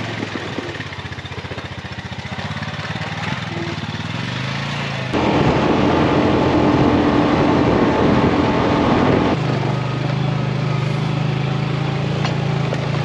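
Vehicle engine running steadily. A louder, rougher stretch lasts about four seconds in the middle, then it settles back to a steady hum.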